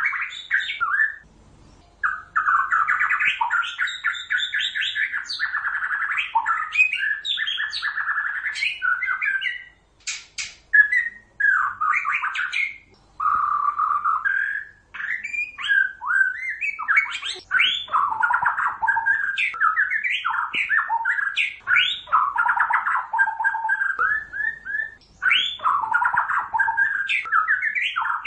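White-rumped shama (Pasaman murai batu) singing a long, fast, varied song of rising and falling whistled phrases and quick notes, with a few brief pauses.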